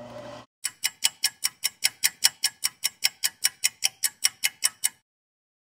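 Clock ticking fast, about five ticks a second, then stopping abruptly. The ticks are sharp and evenly spaced, with silence between them, as in an edited-in time-passing sound effect.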